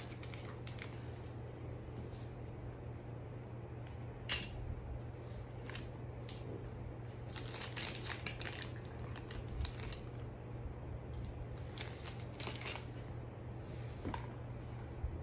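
Small metal wheelchair parts being handled: a sharp ringing metallic clink about four seconds in, then scattered light clicks and crinkles as a small plastic bag of hardware is worked open. A steady low hum runs underneath.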